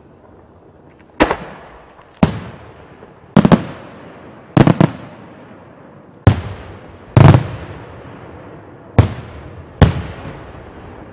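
Aerial firework shells bursting: eight loud bangs roughly a second apart, a few of them doubled, each trailing off in an echo.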